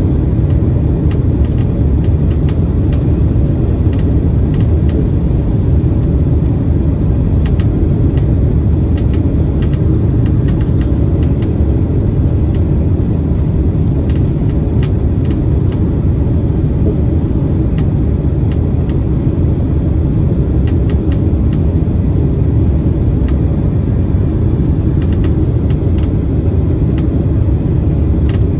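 Steady low rumble of cabin noise aboard a Boeing 767-300ER, even in level throughout, with a few faint clicks.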